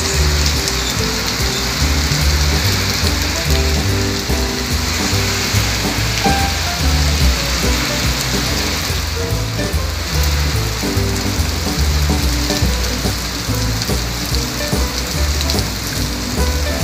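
Steady rain falling on a wet street, an even hiss, with background music carrying a low bass line underneath.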